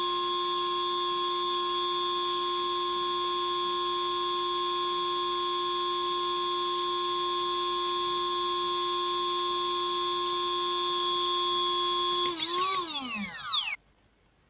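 Emax PM1806 2300Kv brushless outrunner motor spinning with no propeller at steady throttle, giving a steady high-pitched multi-tone whine with a few faint ticks. About twelve seconds in, the throttle is cut and the motor winds down, its pitch falling for about a second and a half until it stops.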